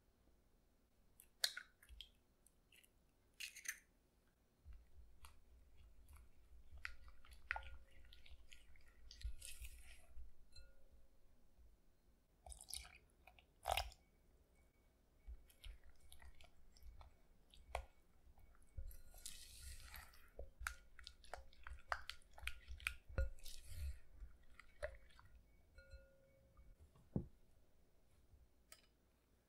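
Close-miked baking sounds in a glass mixing bowl: a sharp tap as an egg is cracked about a second and a half in, then wet, squishy stirring of chocolate batter as an egg and milk are mixed in, with clicks of the utensil against the glass.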